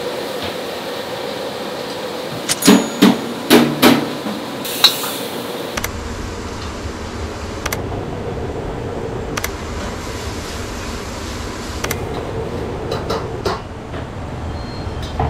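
Commercial kitchen work over a steady ventilation hum, with a burst of four or five loud knocks that ring briefly, about three seconds in, typical of pans or metal utensils. The hum turns deeper partway through, with light clicks scattered after it.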